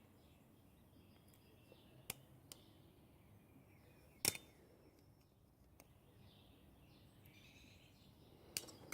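Near silence, broken by a few light clicks of small metal parts and needle-nose pliers as an RC car's clutch is taken apart, the sharpest about four seconds in and another near the end.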